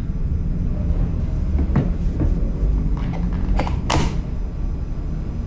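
Round chisel bit being fitted into the chuck of an Oshima K3CN26 rotary hammer, with the tool not running: a few light clicks and knocks of metal and plastic handling, the sharpest click about four seconds in as the bit is pushed home. A steady low rumble lies under it all.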